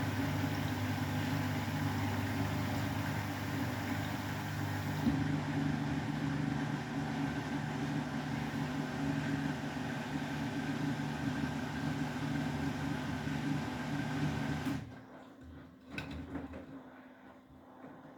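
Beko WTK104121W washing machine's motor turning the drum with a steady low hum, as the machine works toward its spin. The motor stops about fifteen seconds in, and a single click follows a second later.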